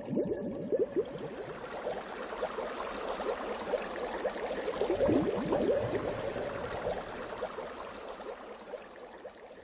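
River water splashing close to the microphone as a small boat moves through it: a steady run of small splashes that grows fainter near the end.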